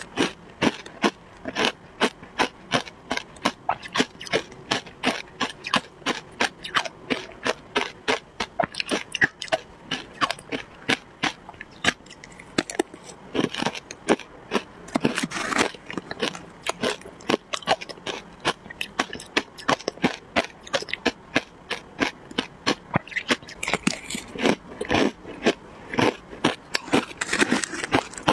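Shaved ice crunching between the teeth as mouthfuls of matcha shaved ice are chewed: a rapid string of crisp crunches, several a second, with a metal spoon scraping the plastic tub now and then.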